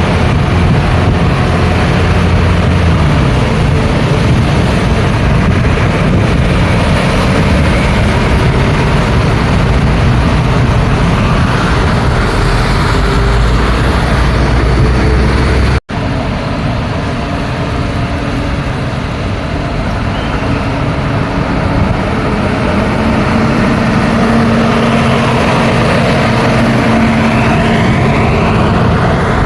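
Busy street traffic: cars, trucks and other vehicles passing in a steady stream of engine and tyre noise, with a momentary dropout about halfway through.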